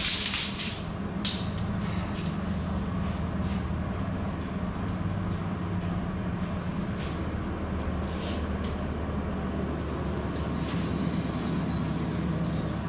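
A steady low mechanical hum with a brief clatter at the start and a few faint clicks and taps scattered through.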